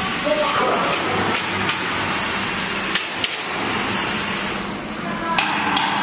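Steady hiss of a 100 A air plasma cutter running, with sharp metallic clicks, two about three seconds in and a few more near the end.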